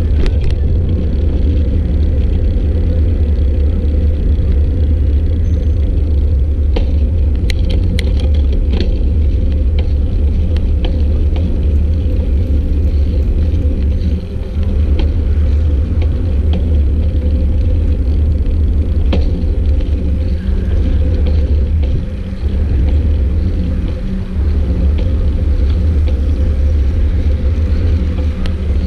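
Steady, loud wind rumble on the microphone of a camera carried on a moving bicycle, with a few sharp clicks around a quarter of the way in and again past the middle.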